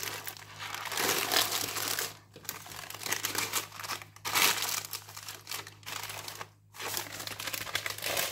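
Baking paper crinkling and rustling as it is worked around a rolled sponge cake and peeled off, in several spells with short pauses between them.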